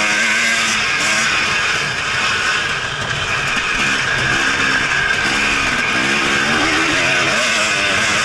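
Enduro motorcycle engine running hard as the bike is ridden over a dirt course. The engine note rises and falls again and again as the rider works the throttle and gears.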